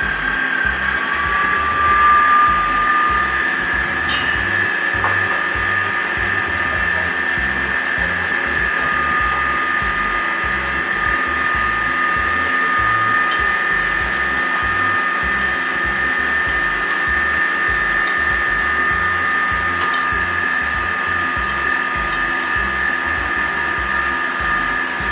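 Electric stand mixer's motor running steadily with a high whine, mixing doughnut dough in its steel bowl; the pitch sags slightly at the start and then holds.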